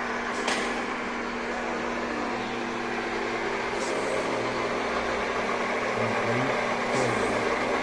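Bench metal lathe running with its chuck spinning a brass rod: a steady motor and gear hum, with a short click about half a second in.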